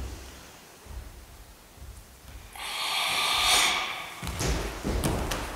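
A long, forced hissing exhalation, the tensed breathing of Sanchin kata, beginning about halfway in, followed near the end by several dull thuds and slaps of strikes landing on the body and karate gi.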